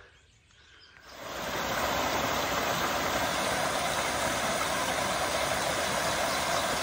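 Small mountain stream running over rocks into a shallow pool: a steady rush of water that starts about a second in.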